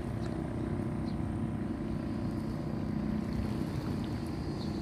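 An engine running steadily at constant speed, a low even drone.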